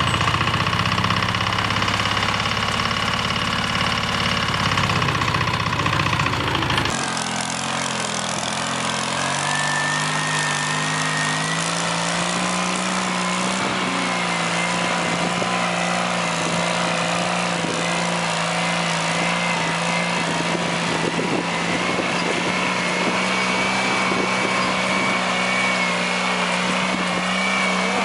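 Small engines of walk-behind tractors running. About seven seconds in, the sound cuts to a second engine whose pitch rises over a few seconds, then holds steady.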